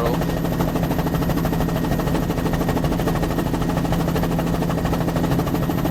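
Bell 206 LongRanger helicopter in steady flight: turbine and main-rotor noise with a fast, even pulsing.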